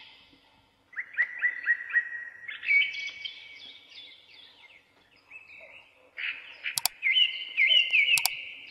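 Birds singing in phrases of short repeated chirping notes, starting about a second in. Two sharp clicks come near the end.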